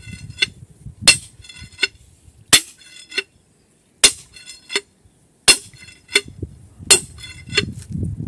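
Sledgehammer striking a steel hand-drill bar held on rock, hand-drilling a blast hole. The blows fall about one every second and a half, five in all, each ringing metallically. A lighter knock follows each blow.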